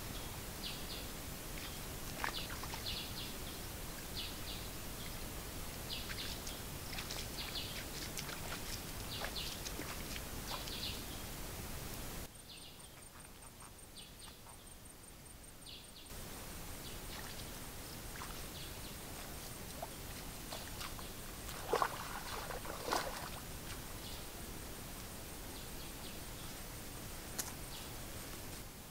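Outdoor ambience of small birds chirping in short repeated calls over a steady hiss. The background drops quieter for a few seconds about twelve seconds in, and a couple of short sharp rustling knocks come around twenty-two and twenty-three seconds in.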